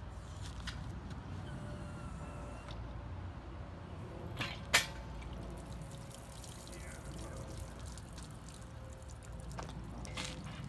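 Removed Land Rover Discovery 2 Rover V8 engine, hanging from an engine hoist on a chain, set down on a wooden pallet with one sharp clunk about halfway through, with a few light clinks and fluid dripping from the block.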